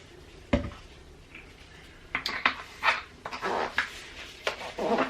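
Handling of plastic bottles and a measuring cup: one sharp knock of something set down, then a run of clicks, taps and short rustling scrapes as the hair developer and toner are measured out.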